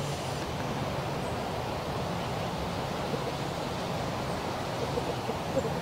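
Steady outdoor background noise: an even hiss with a faint low hum underneath and no distinct event.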